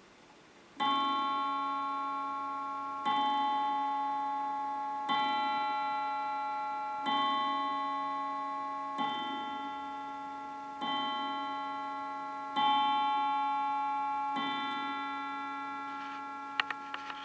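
Antique wooden mantel clock striking eight o'clock: eight slow strikes about two seconds apart, each a ringing metallic tone that fades into the next. The clock's ticking comes through near the end.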